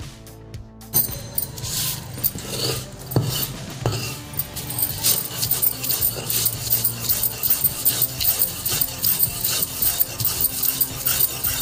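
Background music for about the first second. Then a hand-held grinding stone is rubbed back and forth over a flat stone slab (sil-batta), grinding salt with green chillies, garlic and coriander into a wet paste. The gritty scraping strokes come in a quick, even rhythm of about two or three a second.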